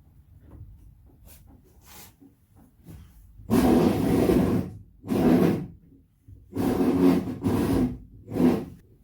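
A power tool motor running in five short bursts after a few seconds of light handling sounds, the first burst about a second long and the rest shorter.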